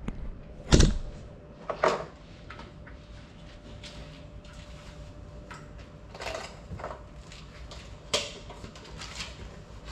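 Handling knocks of a small FPV drone being set down on a hard tiled floor: two sharp knocks, about a second in and again near two seconds, the first the loudest, followed by scattered lighter clicks and taps.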